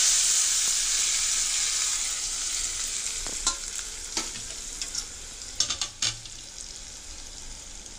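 Hot-oil tempering of mustard seeds, dried red chillies and curry leaves poured into a pan of cooked cucumber kootu, sizzling as it hits the wet dish. The sizzle starts suddenly and loud, then fades gradually, with a few sharp clicks around the middle.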